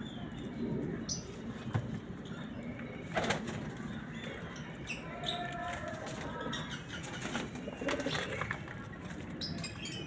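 Pigeons cooing in a loft, with several sharp wing flaps or knocks breaking in at irregular moments.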